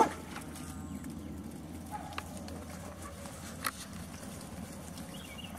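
Labrador puppies playing outdoors: one short, loud yelp that sweeps upward in pitch right at the start, then steady low background noise with a few soft clicks.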